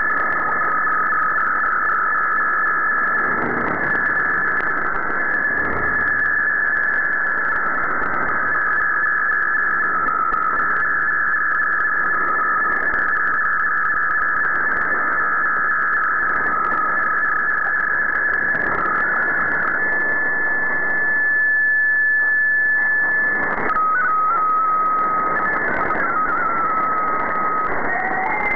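MFSK digital-mode picture transmission received over shortwave AM: data tones in the middle of the audio range that shift and step, over a bed of shortwave static with brief swells of noise. About two-thirds through, the signal holds one steady tone for a few seconds, then goes on with stepping tones.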